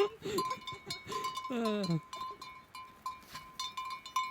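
Small bells clinking over and over, with one falling bleat from a sheep about one and a half seconds in.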